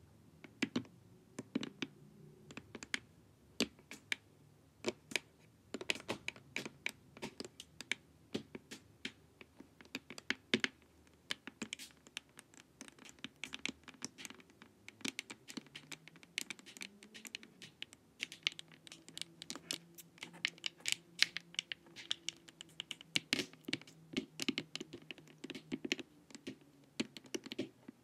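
Long fingernails tapping and scratching on a hard glossy plastic face mask: a quick, irregular patter of sharp clicks.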